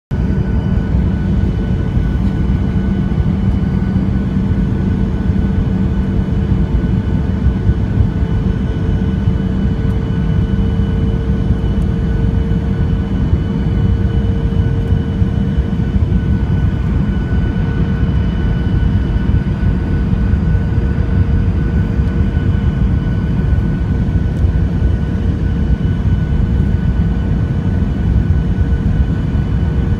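Jet airliner cabin noise: a steady, loud rush of engine and air noise heard inside the cabin, with a constant whine from the turbofan engines on top.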